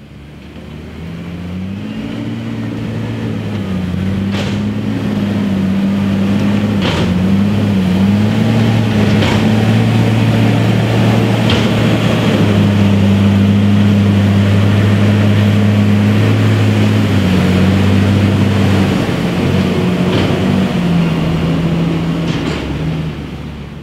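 JCB 414S loading shovel's diesel engine working as it pushes and climbs the silage clamp, its pitch rising and dipping with the load, with a faint tick about every two and a half seconds. The sound fades in over the first few seconds and fades out near the end.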